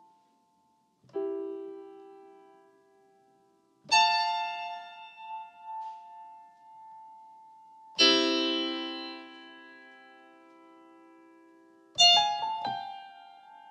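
Slow piano chords from a software instrument played on an Akai MPK mini MIDI keyboard. Four chords are struck about four seconds apart, each held and fading, with a few quick notes after the last one.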